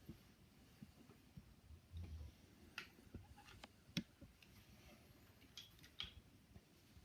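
Faint scattered clicks and taps of a tool and metal parts while a screw on a Stevens 820 shotgun is tightened, with one sharper click about four seconds in.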